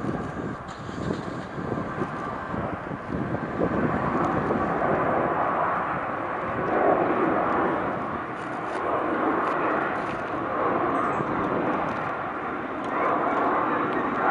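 Boeing 767 twin-engine jet airliner climbing out after takeoff: a steady rushing jet-engine noise with slow swells in loudness.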